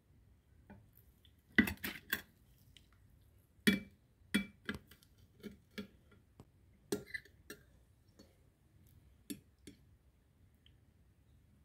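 A knife and then a fork clicking against a plate while cutting through poached eggs: about a dozen sharp clicks in loose clusters.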